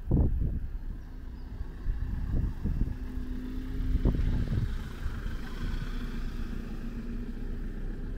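A car driving past on the street, its engine a steady low hum, with irregular low thumps.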